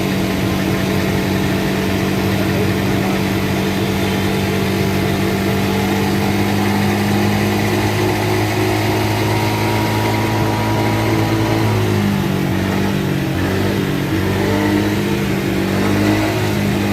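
Honda SH scooter's engine idling steadily, its pitch wavering and shifting from about twelve seconds in.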